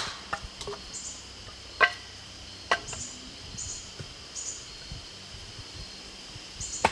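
Sharp wooden knocks as a full-tang D2 steel bushcraft knife is driven through a piece of wood to split it: three strikes in the first three seconds, then a pause and one more near the end. Insects chirp faintly and steadily in the background.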